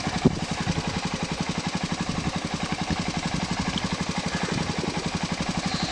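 ATV engine idling steadily, its exhaust pulsing evenly at about a dozen beats a second.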